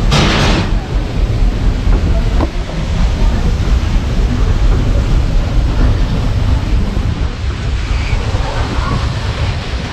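Wind buffeting the camera microphone on the open deck of a paddle steamer under way: a steady low rumble with a louder rush in the first second.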